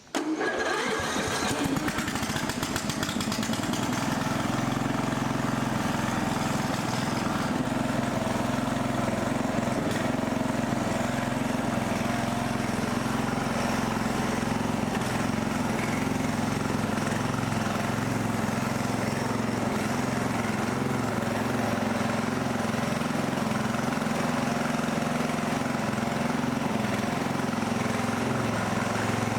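Freshly rebuilt Briggs & Stratton 17.5 HP riding-mower engine, started with a little choke, catching right away and then running steadily. It runs after changes to its carburetor, which the owner found to be the cause of its earlier problems.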